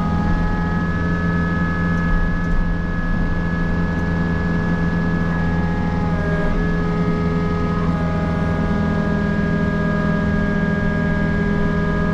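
Mini excavator's diesel engine running steadily, with a slight change in its tone about eight seconds in.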